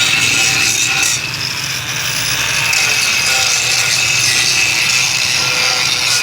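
Power grinder grinding the surface of an old frying pan, a steady, loud rasping that eases briefly about a second in.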